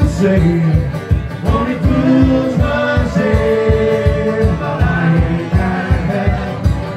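Live folk band playing a lively song: banjo and guitar over a steady beat of about four a second, with singing.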